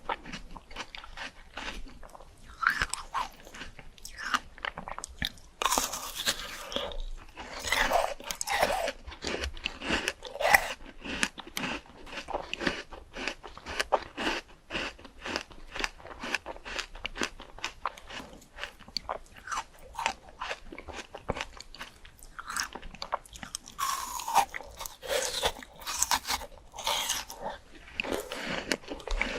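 Close-up chewing and crunching of crisp fresh fruit, with rapid wet, crackly bites and chews that come in louder spells.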